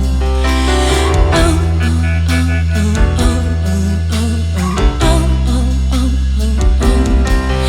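A rock band playing live: electric guitar over a steady bass line and a drum kit keeping the beat.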